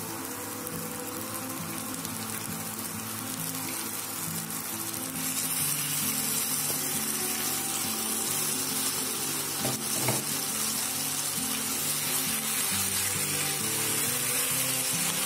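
Oil sizzling in a frying pan with fried gongura leaves. About five seconds in, raw chicken pieces go into the hot oil, the sizzle turns louder, and the chicken is stirred in.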